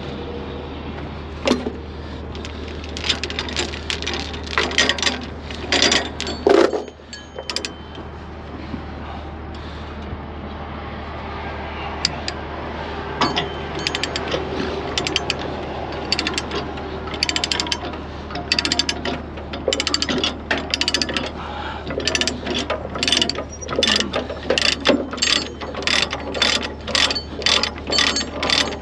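Ratchet chain binder being worked by hand on a trailer's load chain: repeated sharp clicks of the ratchet pawl, falling into a steady rhythm of one or two clicks a second in the second half, over a steady low hum.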